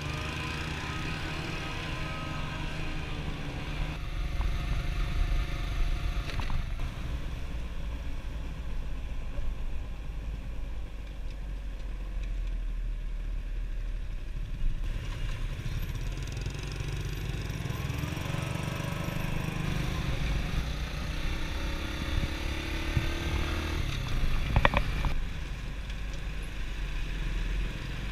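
Motorcycle engines running on the move, the pitch rising and falling with throttle and gear changes, over a steady rumble of road and wind. There is one sharp click near the end.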